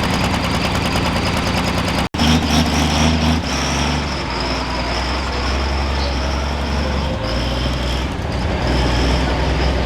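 Diesel pickup truck engine running hard with a high steady whine over it, cut off by an abrupt break about two seconds in, after which a diesel truck engine runs on steadily.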